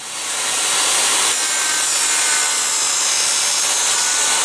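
A power-tool motor running steadily, a continuous high rushing whine.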